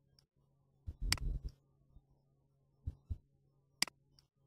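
Computer mouse clicks with soft low thumps of the mouse being handled, a cluster about a second in and a sharp click near the end, over a faint steady low hum.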